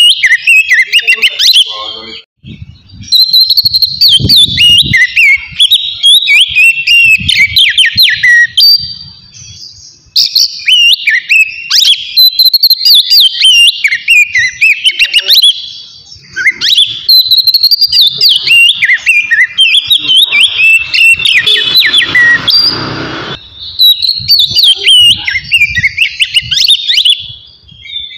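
An Oriental magpie-robin (kacer) singing loudly in its 'ngeplong' style: fast, varied whistled phrases and chattering notes, coming in several bursts with short pauses between them. Around two-thirds of the way through there is a harsher, rasping stretch.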